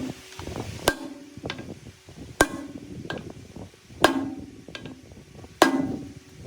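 Hammer blows on a metal part: four heavy strikes about a second and a half apart, each ringing briefly, with lighter taps and knocks in between.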